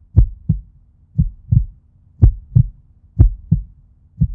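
Heartbeat sound effect: a low double thump, lub-dub, repeating about once a second over a faint low drone.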